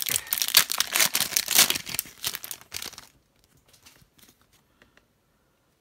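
Trading card pack's foil wrapper crinkling and tearing as it is ripped open by hand, for about three seconds, followed by a few faint rustles as the cards are slid out.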